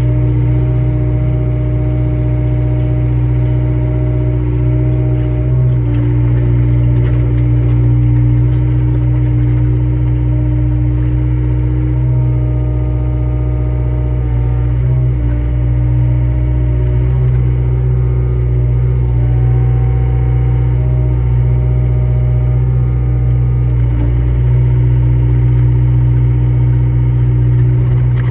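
Excavator's diesel engine running steadily, with small shifts in pitch now and then.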